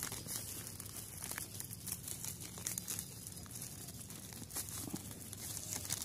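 Clear plastic bag crinkling and dry grass rustling as hands fit the bag over the mouth of a grass nest, a run of small irregular crackles.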